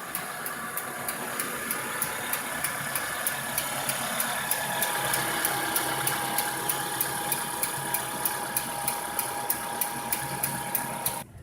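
Renault Megane 2's LPG gas injectors (Valtec) ticking loudly in a regular sharp rhythm over the idling, still-cold engine. The owner calls the clatter abnormal, like a diesel, and has not yet found its cause since the gas system was fitted. The sound drops off suddenly near the end.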